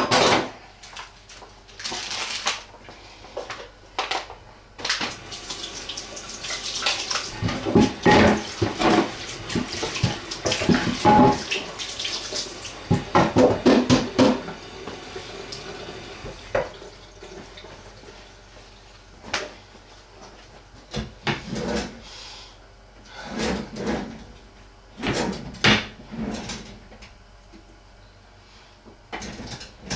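Kitchen tap running into a sink as a bowl is washed, with knocks and clatter of the bowl and dishes. The running water lasts about ten seconds in the first half; after that come only scattered clatters.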